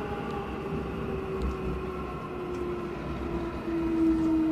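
Airport Railroad express electric train running underground and slowing as it nears Seoul Station, its motor whine falling steadily in pitch and growing louder near the end, with a few faint clicks from the track.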